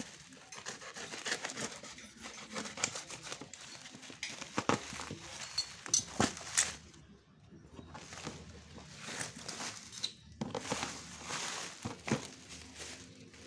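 Plastic and cardboard packaging being handled during an unboxing: crinkling and rustling, broken by irregular sharp clicks and knocks, with a couple of brief pauses.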